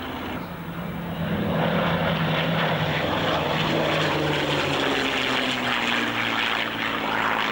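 A formation of propeller warplanes flies past: a twin-engined Grumman F7F Tigercat and a P-51 Mustang with piston engines, and a Shorts Tucano turboprop. The drone swells about a second and a half in and then slowly falls in pitch as they pass.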